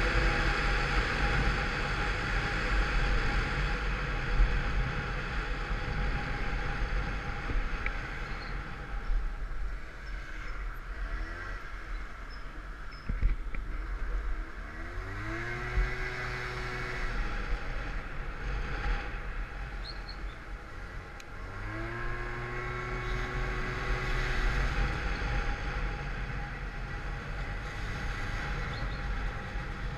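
Peugeot Vivacity 50cc scooter engine under way, with wind noise on the microphone. It eases off about ten seconds in, then pulls away twice, about halfway through and again about two-thirds through, the engine note rising and then holding steady as the derestricted variator takes up the drive.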